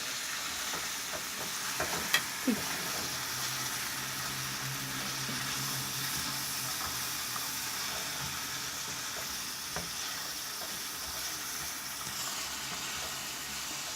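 Sausages and vegetables frying in an oiled skillet with a steady sizzle, with a few short knocks about two seconds in.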